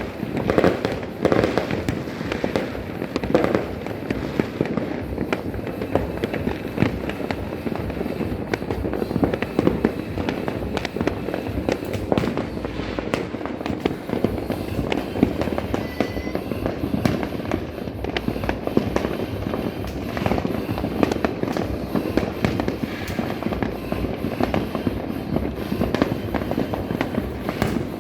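A dense, unbroken barrage of fireworks and firecrackers going off on all sides, with overlapping cracks and pops and no let-up.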